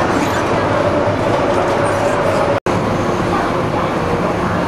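Hong Kong MTR subway train running, heard from inside the carriage as a steady rumble and hiss with a faint steady whine. The sound cuts out for a split second about halfway through.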